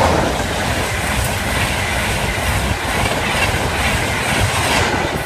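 Virgin Trains East Coast InterCity 225 electric train, Mark 4 coaches, passing at speed: a loud, steady rush of wheel and rail noise that builds as the train arrives and falls away as the last vehicle clears.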